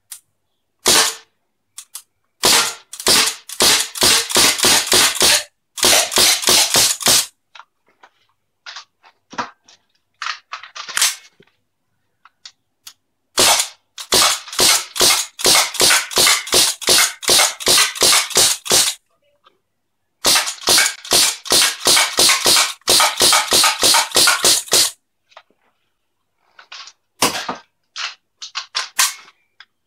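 Rapid semi-automatic gunfire: sharp cracks at about three to four shots a second, in several bursts lasting a few seconds each, with fainter scattered clicks between the bursts.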